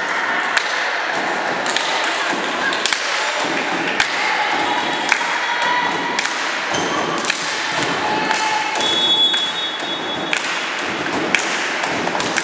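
Irregular sharp thuds of a volleyball being bounced and struck, about one a second, over a murmur of voices in the hall.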